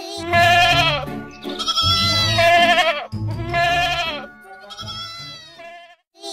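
A herd of goats bleating: about four long, wavering calls, some overlapping, with a low rumble under them.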